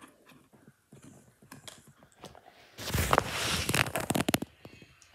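Close rustling and crackling handling noise, like plastic or fabric rubbed right at the microphone. It starts loud about three seconds in after a few faint clicks, and eases off shortly before the end.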